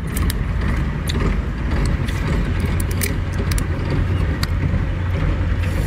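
A steady low engine rumble, with a few sharp snaps and crackles as a crayfish's shell is cracked and peeled apart by hand.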